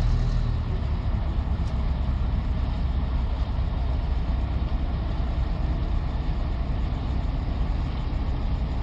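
A boat's engine running steadily, a continuous low drone with no change in pace.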